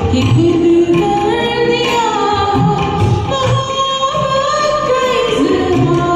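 Music: a Hindi film song sung to a karaoke backing track, a gliding melody over a steady percussion beat.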